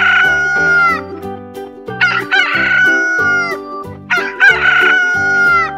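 Rooster crowing three times, cock-a-doodle-doo, about every two and a half seconds, over background music.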